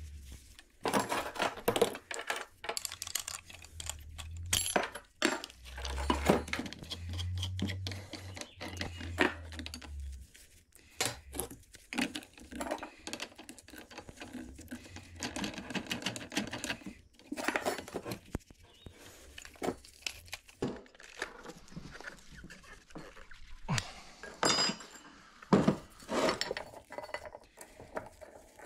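Irregular clinks and knocks of metal tools being handled on a steel bench: an angle grinder's cutting disc being swapped for a flap sanding disc, and near the end a bench vise being worked.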